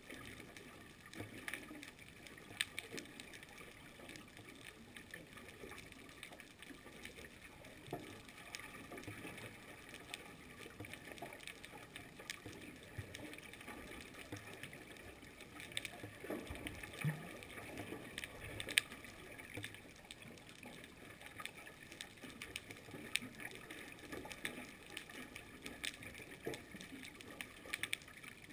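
Underwater ambience picked up by a camera in its housing on a reef: a faint steady hiss with scattered, irregular clicks and crackles, and a few sharper clicks about two-thirds of the way through.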